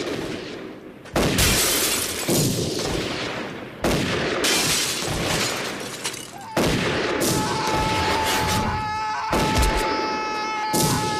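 About four loud gunshots fired into a car at irregular intervals, each followed by a rush of shattering window glass. From about halfway a steady high tone with overtones holds on.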